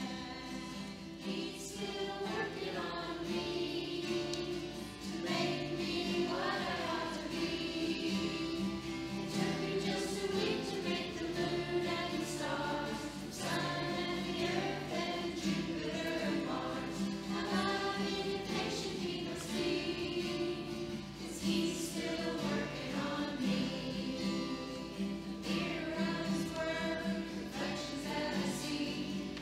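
A Christian song sung with acoustic guitar accompaniment, a group of children's voices singing along together.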